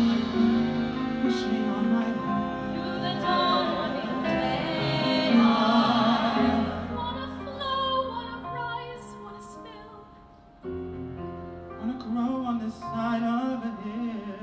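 Mixed vocal quartet, two women and two men, singing long held harmonies. The chord swells, then dies away about ten seconds in, and a softer phrase with vibrato follows.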